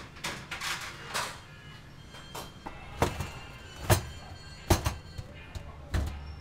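Background music over food-stall clatter. Scraping and rustling in the first second or so, then a handful of sharp knocks, about one a second.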